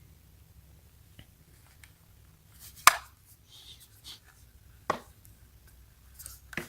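Handling of a plastic power strip: two sharp knocks about two seconds apart, the first louder, with faint handling noise around them.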